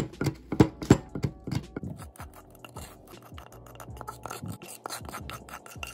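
Oreo cookies being pounded and ground with a wooden pestle in a wooden mortar: a run of dull knocks and crunches, strongest in the first couple of seconds, then quicker, lighter grinding taps and scrapes.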